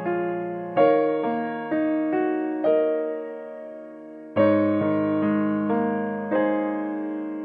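Background piano music: a gentle melody of single struck notes that ring and fade. A lull comes after about three seconds, then a deeper chord with a bass note starts a new phrase at about four and a half seconds.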